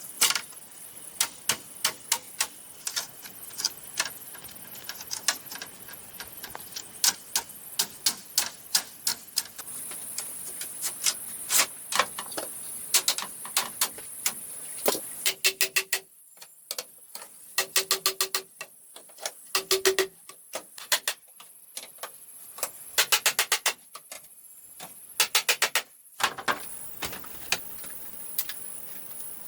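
Hand tool striking bamboo: irregular sharp knocks and taps, broken by several quick runs of rapid tapping.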